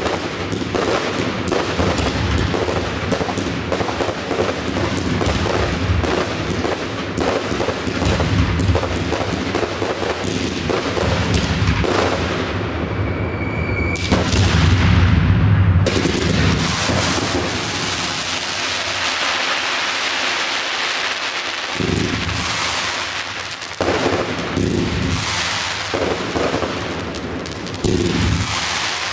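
Fireworks display: a dense, rapid barrage of cracks and bangs for about the first twelve seconds and a louder patch around fourteen seconds, then a crackling hiss, then several separate heavy booms in the last third.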